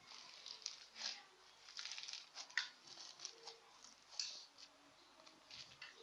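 Slime mixed with styrofoam beads being kneaded and stretched by hand, making faint, irregular crackling and squishing clicks.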